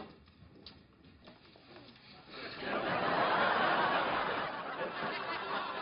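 Sitcom studio audience laughing: quiet for the first couple of seconds, then a burst of crowd laughter swells up and carries on at full strength.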